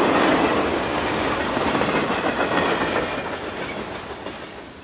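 Railway train rolling by with the clatter of its wheels, loudest at first and then fading away over several seconds.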